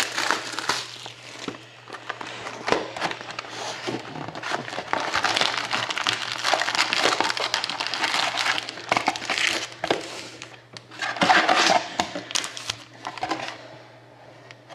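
Rustling and crinkling of foil card packs and cardboard with many small sharp crackles as a Panini Contenders hockey card box is opened and its packs are taken out and stacked.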